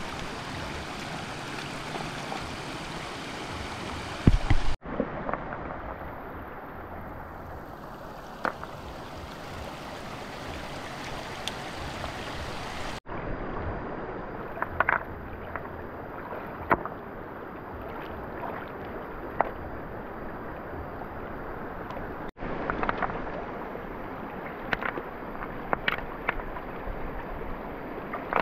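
Water moving and splashing, with scattered small splashes and knocks and a louder thump about four seconds in.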